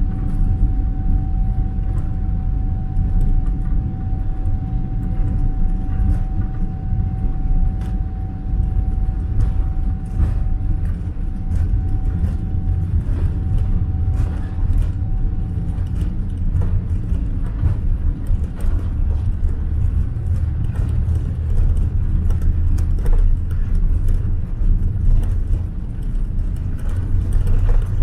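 Cabin noise of a Boeing 777-300ER with GE90 engines moving on the ground: a steady low rumble with light rattling clicks, and a thin steady whine that fades out about halfway through.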